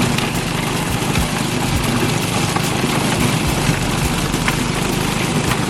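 Engine running steadily under a loud, even rushing noise.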